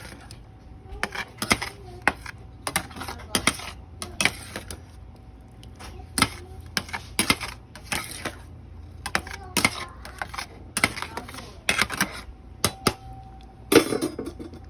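Kitchen clatter: utensils and cookware knocking and clinking, many sharp irregular clicks.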